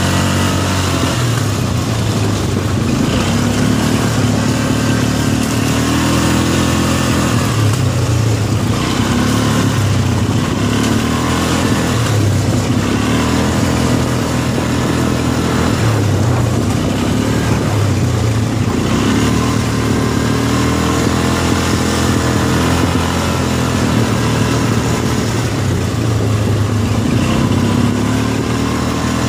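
ATV engines running along a bumpy dirt trail, the pitch rising and falling every few seconds as the throttle is opened and eased off.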